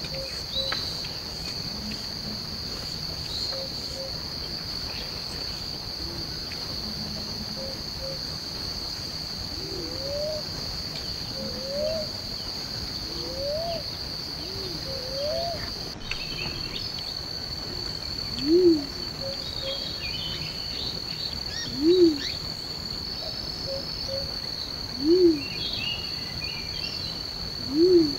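A steady high-pitched insect chorus. A low call repeats four times about three seconds apart in the second half, louder than the chorus, with fainter rising calls before it.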